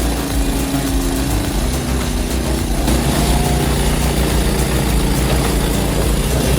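A machine's engine running steadily, its pitch shifting slightly now and then.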